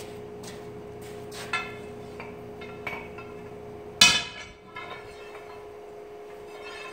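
A few light metal clinks, then one loud clang of steel bar stock on metal about four seconds in that rings briefly; a steady hum runs underneath.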